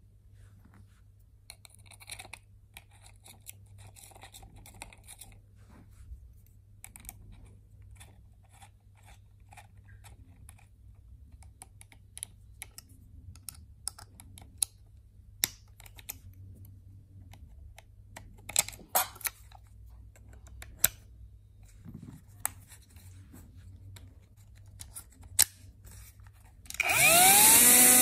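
Scattered small clicks and taps of metal parts being handled as a disc is fitted and tightened onto a 12 V cordless mini angle grinder. Near the end the grinder switches on: its motor whine rises quickly to a steady high running note as the disc spins free.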